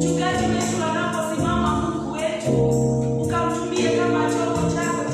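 Gospel praise music: a choir singing over instruments with a steady beat.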